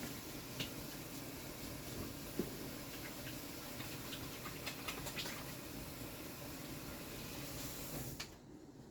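Kitchen tap running as hands are washed under it, a steady hiss of water with a few small knocks and splashes, shut off suddenly about eight seconds in.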